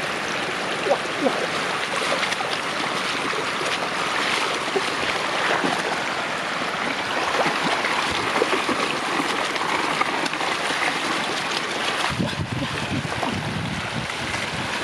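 Shallow floodwater rushing steadily, broken by many small splashes.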